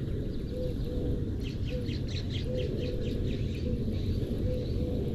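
A small bird chirping a quick series of high notes over a steady low rush of outdoor noise.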